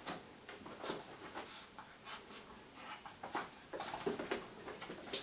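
Yorkshire terrier rubbing and rolling on a towel and a cotton rug to dry himself: a run of irregular scratchy rustles and scuffs of wet fur and paws on the fabric, busiest and loudest about four seconds in.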